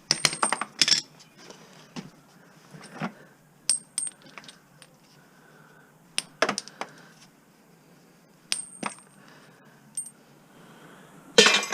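Small pieces of scrap metal clinking and ringing as they are dropped onto a pile, in several separate bursts of sharp metallic clinks, the loudest cluster near the end.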